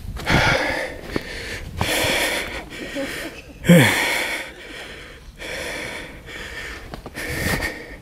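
A person breathing heavily close to the microphone, a long noisy breath about every second and a half, one about four seconds in ending in a falling voiced sigh.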